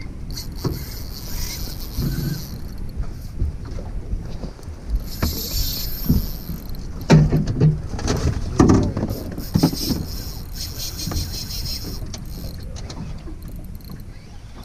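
Spinning reel being wound in stretches as an angler fights a heavy fish on a hard-bent rod, over a low rumble of wind on the microphone and the small boat.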